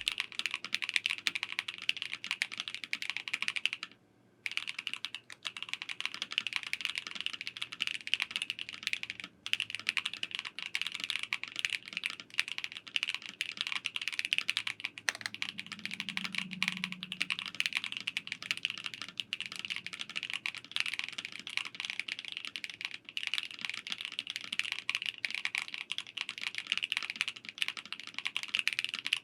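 Continuous typing on an ASUS ROG Azoth Extreme, an aluminium-chassis, gasket-mounted mechanical keyboard with pre-lubed ROG NX Snow switches: a dense run of keystrokes that pauses briefly about four seconds in and again around nine seconds.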